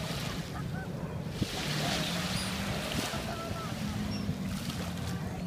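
Gulls giving short, scattered calls overhead, over the steady wash of small waves breaking on the shore.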